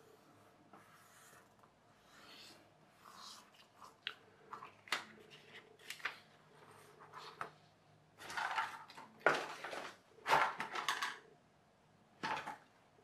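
A strip of paper being folded and creased by hand: scattered soft taps and rustles, with louder crinkling rustles about eight to eleven seconds in and once more near the end.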